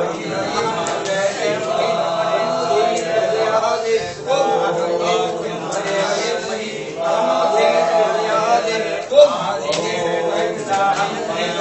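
A group of men chanting a Hindu devotional chant to Shiva together, several voices on a steady line, with a sharp click about nine seconds in.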